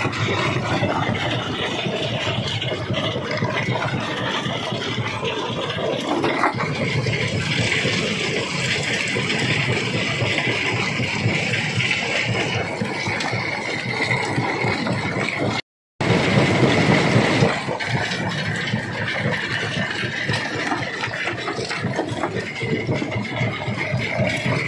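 Rock crusher machinery running: a continuous grinding, rattling mechanical din with a faint steady whine. It drops out for an instant about two-thirds of the way through, then comes back briefly louder.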